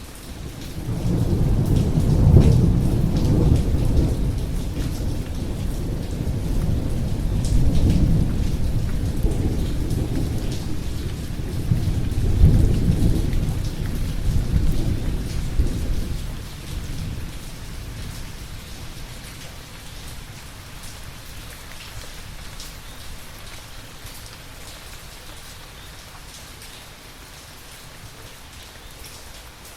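Steady rain falling, with a long roll of thunder. The thunder swells about a second in, peaks again several times, and rumbles away over about fifteen seconds, leaving the rain hiss.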